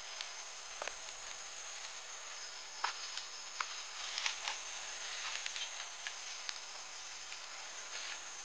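Insects chirring steadily, a high even drone, with a handful of short sharp clicks and ticks scattered through. The loudest clicks come about three and four seconds in.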